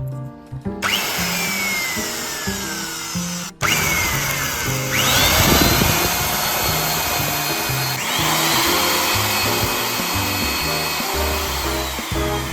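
Electric drill running into a wooden branch, its whine speeding up to a steady pitch and sliding back down several times. Background music plays underneath.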